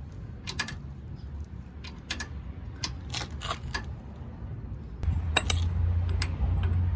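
Irregular sharp metallic clicks and clinks of steel parts being handled around an old car jack, with a low rumble coming in about five seconds in.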